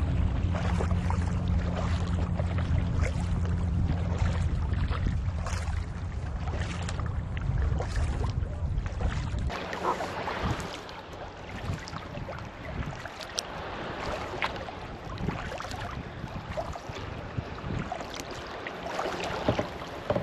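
Sea kayak paddling: paddle blades splashing and water lapping against the hull every second or so. A low wind rumble on the microphone covers the first half and stops about halfway through, after which the splashes come through more clearly.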